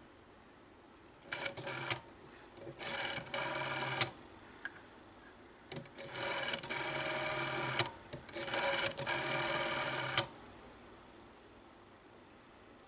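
A rotary telephone dial being turned and released to dial a number, whirring and clicking back to rest in four spells of one to two seconds each.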